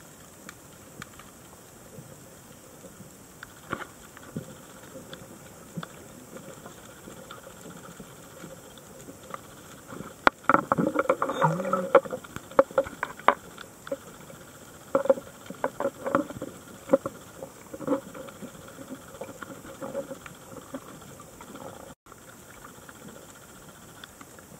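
Underwater sound through a camera housing: a steady hiss with faint scattered clicks, and a burst of louder crackling, bubbling noise about ten seconds in that comes back more weakly a few seconds later, the kind of noise a scuba diver's exhaled bubbles make.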